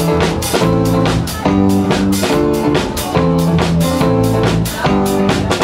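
Live band playing: guitar chords ringing over a drum kit keeping a fast, steady beat.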